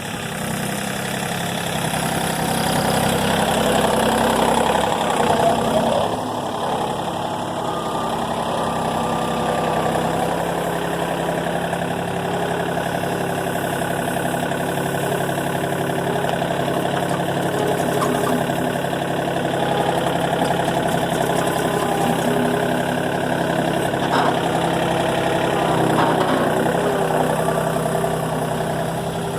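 Engine running steadily, a little louder for a couple of seconds about four seconds in, then holding at an even level.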